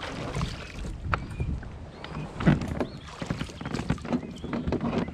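A person climbing into a plastic sit-on-top fishing kayak in shallow water: irregular knocks and bumps against the hull over water sloshing, with one louder thump about halfway through.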